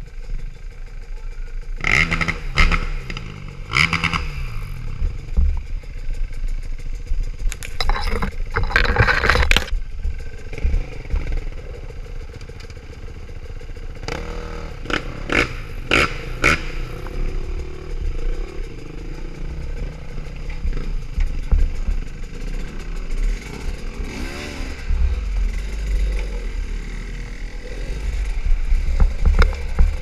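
Two-stroke Sherco SE-R 250 trail bike engine idling, with several short bursts of throttle, and other dirt bikes running close by.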